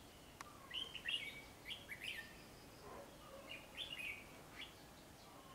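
Red-whiskered bulbuls calling: several short, bright phrases of quick rising and falling notes, with gaps between them.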